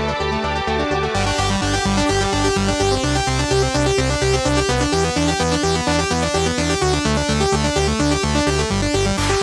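Electronic dance music with a steady pulsing beat and repeating synthesizer notes; the sound fills out with brighter treble about a second in.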